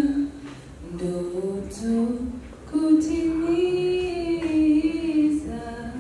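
A woman singing a slow unaccompanied melody into a microphone: short rising phrases, then one long held note that drops to a lower one near the end.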